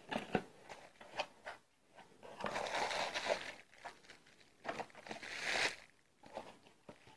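Bubble wrap and cardboard rustling and crinkling as a bubble-wrapped package is lifted out of a cardboard box, in a few short spells with light clicks and knocks between them.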